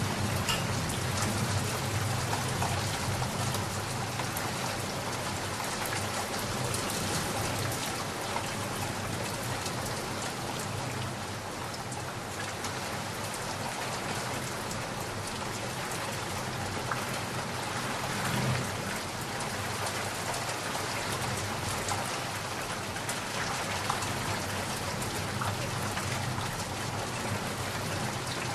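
Steady rain, a dense patter of drops on a surface. A low rumble of distant thunder swells underneath near the start and again about two-thirds of the way through.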